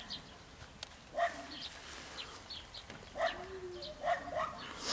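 A dog barking repeatedly, short barks about a second apart that come faster near the end, with small birds chirping.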